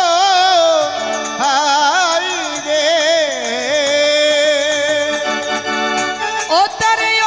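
Bengali kirtan music: harmonium holding steady chords under a melody that slides and wavers up and down, with no words sung.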